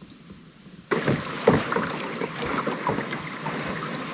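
Water lapping and splashing against a kayak's hull as it moves on the river. It starts suddenly about a second in, with many small irregular splashes and knocks in a steady wash.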